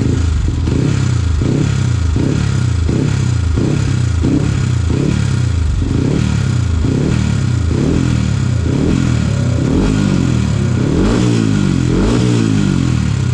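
Yamaha WR155R's single-cylinder engine blipped on the throttle about twice a second, revs rising and falling, through a Radamel Racing stainless aftermarket exhaust with its valve open in racing mode. With an open air filter it is somewhat noisy.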